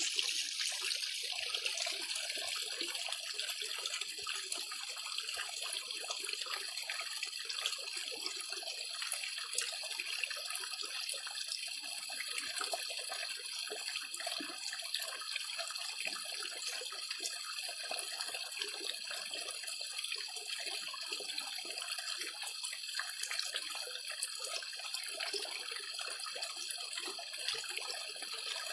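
Water running and splashing steadily into a pond as it is being filled.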